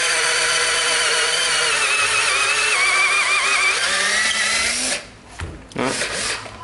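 Ryobi 12V cordless drill drilling into a wooden block: a steady motor whine that sags in pitch under load and rises again as the bit frees, then stops about five seconds in. A few short knocks follow as the drill is handled.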